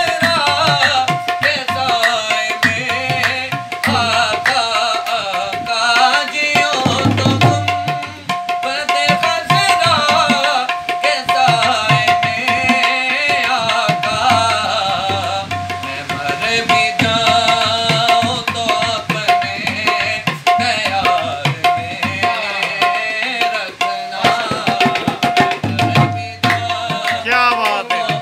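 Tabla played in a fast, dense rhythm: the tuned right-hand drum rings at one steady pitch under the strokes, with deep booms from the bass drum now and then, strongest about seven seconds in and again near the end.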